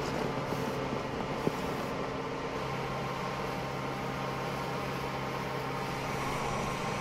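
Steady low engine hum of construction machinery under general building-site noise, with a faint knock about one and a half seconds in.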